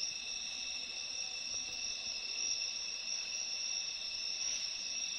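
A steady chorus of night insects, with several high-pitched continuous tones layered together.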